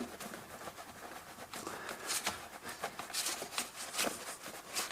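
Faint, irregular scuffing and rustling of hands working around a car's bare front suspension, in about five short bursts.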